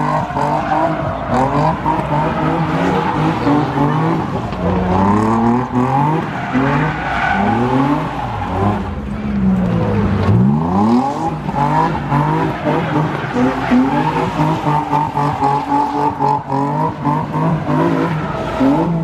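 Car engines revving hard, their pitch climbing and dropping again and again with several overlapping, over tyre squeal.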